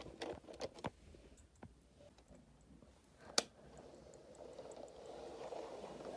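Light clicks and knocks of a plastic toy horse trailer being handled and pushed over carpet, with one sharp click about three seconds in. A soft rustling noise builds near the end.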